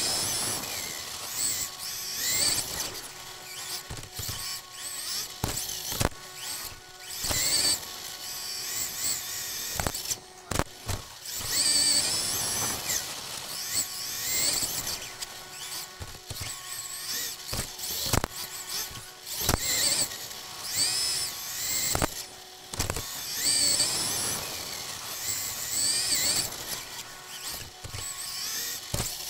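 Xray XB2 2024 2WD RC buggy with a 13.5-turn stock brushless motor, heard from onboard: the motor and drivetrain whine rising in pitch with each burst of throttle and dropping off again, over and over. Sharp knocks come every few seconds.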